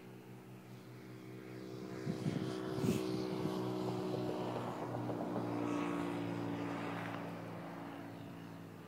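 An engine passes by, its steady hum swelling over a few seconds, holding, then fading away, with a couple of sharp knocks about two to three seconds in.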